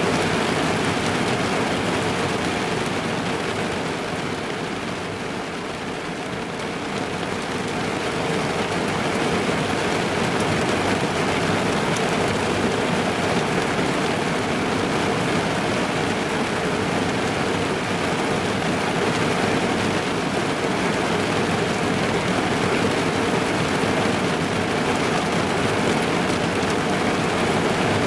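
Heavy rain pattering on a car's roof and windows, heard from inside the car, a dense steady hiss that eases slightly about five seconds in and then comes back.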